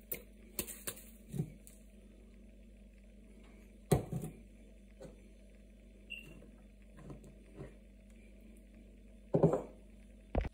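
Scattered light knocks and clinks from kitchenware being handled on a counter: a metal spoon in a ceramic bowl and a glass of flour picked up and tipped in. The loudest knocks come about four seconds in and just before the end, over a faint steady hum.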